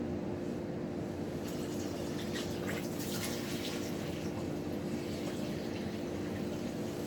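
Water running out of a water heater tank's drain valve into a bucket during a sediment flush, filling and splashing, with sputters from about a second and a half in. A steady low hum runs underneath.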